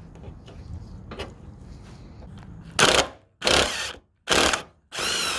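Handheld power tool run in four short bursts on a small bolt that is being stripped. The bursts start about halfway through, after a stretch of low background noise.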